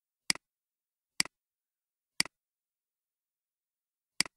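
Four computer mouse clicks: three checkboxes being ticked about a second apart, then a last click about two seconds later. Each is a short, sharp press-and-release.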